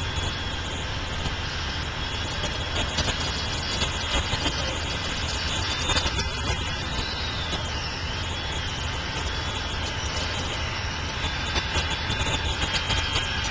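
An engine idling steadily with a low rumble. From about the middle on, a thin high tone wavers up and down in pitch.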